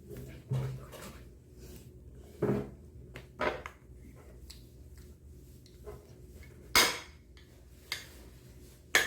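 Spoons clinking and knocking against dishes while ice cream is eaten: a handful of separate sharp knocks a second or more apart, the loudest two near the end.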